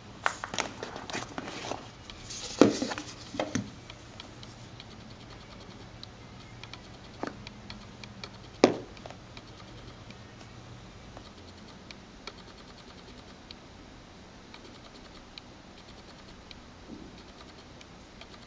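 Hands handling a cardboard phone box: the lid scraping and sliding off with rustles and light taps for the first few seconds, then two sharper knocks about seven and nine seconds in, and only faint handling clicks after that.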